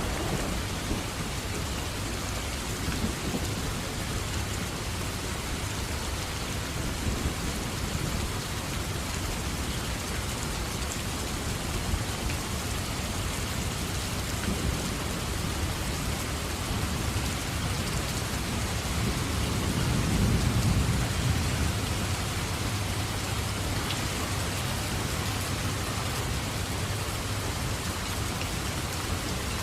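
Steady rain falling, with a low roll of thunder that swells and fades about two-thirds of the way through.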